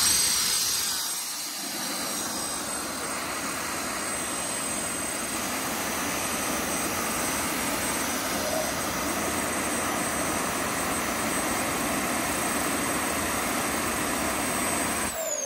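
Gravity jet suit's small jet turbines running: a steady rushing blast with a high whine. Near the end the engines spool down and the whine falls in pitch.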